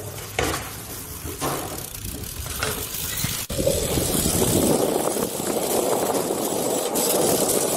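BMX bike being ridden and balanced on skatepark concrete: tyre rolling noise with a few sharp knocks in the first half. It becomes louder and denser after a brief break about three and a half seconds in.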